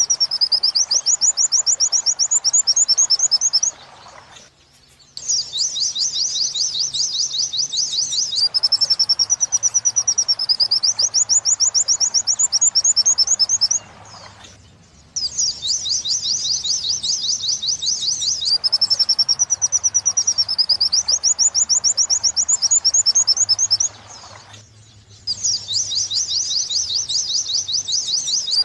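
Pleci (white-eye) song in the 'wit-wit sambung kunti' style, a looped tutor recording for training songbirds. Fast runs of sharp high chirps alternate with a wavering trill. The phrase repeats about every ten seconds, and each repeat is broken by a pause of a second or two.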